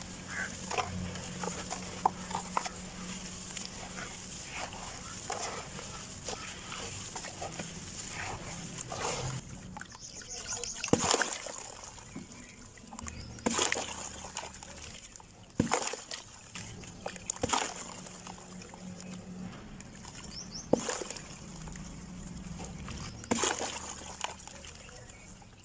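Lumps of sand cement being crumbled, with separate sharp crunches about every two to three seconds through the second half.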